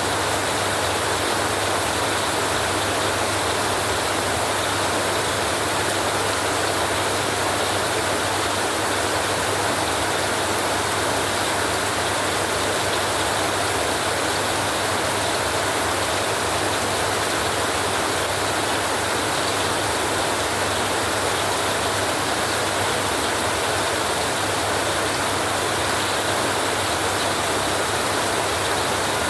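Heavy rain on a metal roof with storm wind: a steady, even hiss with a low rumble underneath and no change throughout.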